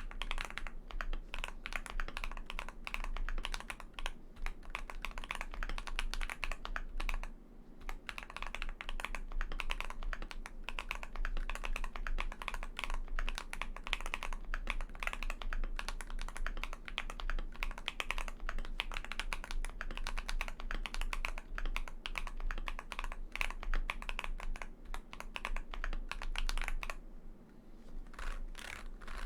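Fast typing on a mechanical keyboard fitted with Akko V3 Lavender Purple Pro tactile switches, factory-lubed: a dense run of keystroke clacks with brief pauses about seven seconds in and near the end.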